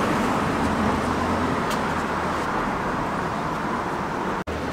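Street traffic noise from a vehicle going by close on the road: a steady rush that starts suddenly and slowly eases off, cutting out for an instant near the end.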